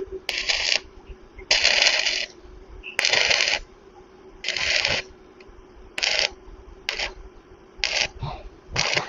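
Rough scraping strokes, about eight of them, each under a second and spaced unevenly with short pauses between.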